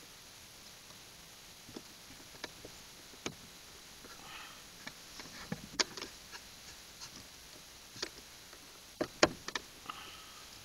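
Natural-fiber lashing being wrapped and pulled tight around bamboo poles by hand: scattered light clicks and taps of fiber and bamboo, with sharper knocks about six seconds in and a few more near the end.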